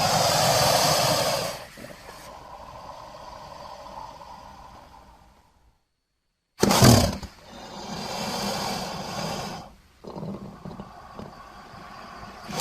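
Two harsh crocodilian calls. Each opens with a loud burst and trails off more quietly over several seconds, with a short silence between them.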